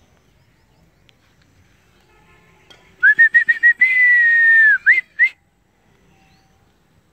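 A man whistling to pigeons flying overhead: a run of quick short chirps, then one long whistle that falls slightly in pitch, then two short rising notes.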